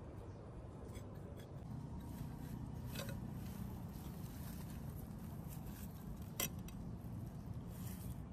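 Hands scraping and rustling through dry pine needles and forest litter while digging out a rusty axe head, with a few sharp ticks, the loudest about six seconds in.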